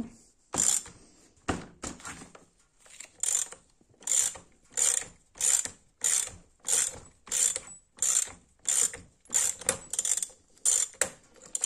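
Socket ratchet worked back and forth, its pawl clicking on each return stroke about one and a half times a second, driving an oversize self-tapping bar stud into a chainsaw's plastic crankcase.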